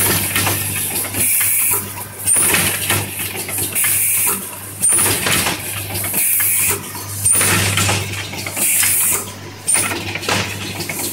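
Automatic screw-locking machine cycling: pneumatic cylinders clack and valves release bursts of hissing air, with a short chirp in each cycle, repeating about every two and a half seconds over a steady low hum.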